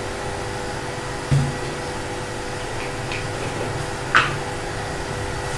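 A steady mechanical whir in the kitchen, with a dull knock a little over a second in and a sharp clink about four seconds in, the clink like a spoon against the metal pot as spices go in.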